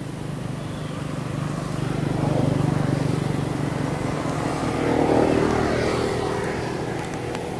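A motor vehicle's engine droning past, swelling to a peak about two and a half seconds in and again about five seconds in, then fading.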